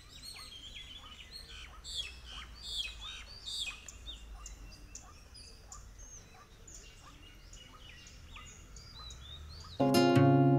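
Several birds chirping, many short high calls overlapping, busiest in the first few seconds and thinning out after. Acoustic guitar music comes in just before the end.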